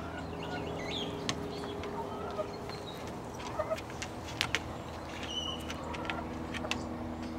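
Light Brahma hens clucking softly, with several short sharp sneezes, two of them in quick pairs near the middle, a sign of respiratory irritation that the owner puts down to dust in the pen.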